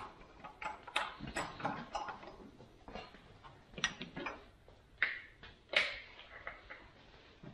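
Irregular clicks and light knocks of a plastic oil jug with a pour spout being picked up and handled while engine oil is topped up, with a couple of louder knocks a little after five and near six seconds in.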